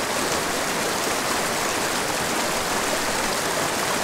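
Small mountain creek rushing over rocks and through shallow riffles: a steady, unbroken rush of running water.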